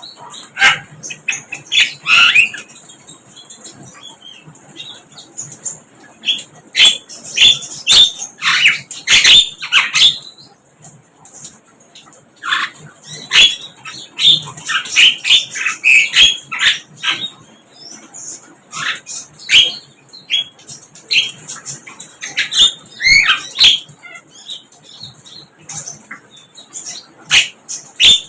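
Sikatan londo, a flycatcher, singing a rapid run of sharp chirps and short falling whistles in bunched phrases with brief pauses.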